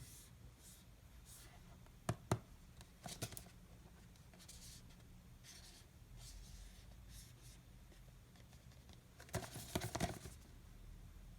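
Packaging of a new computer mouse being handled and opened: soft scrapes and rustles, with a few sharp clicks and taps, two close together about two seconds in and a cluster near the end.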